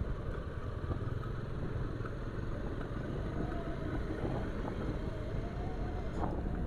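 Bajaj Pulsar 220F motorcycle's single-cylinder engine running steadily while riding at road speed, under a heavy low rumble of wind and road noise.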